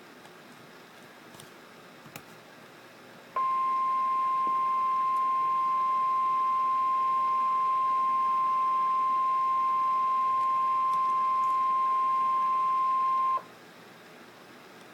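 Emergency Alert System attention signal announcing a tropical storm warning: a single steady tone of about 1 kHz, the 1050 Hz weather-radio alarm, held for about ten seconds. It starts abruptly about three seconds in after faint hiss and cuts off sharply.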